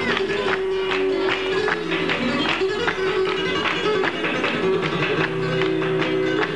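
Flamenco music with plucked guitar, over a dense, quick run of sharp clicks.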